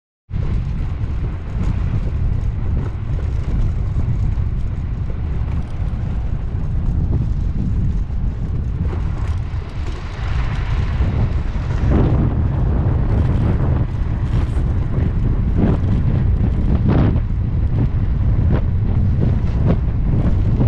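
Strong wind buffeting a camera microphone: a constant deep rumble, with gusty rushes that grow sharper from about halfway through.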